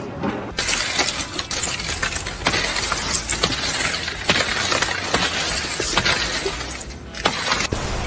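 A long crash of something breaking and falling apart, shattering and clattering with many sharp clinks for several seconds before it dies down near the end.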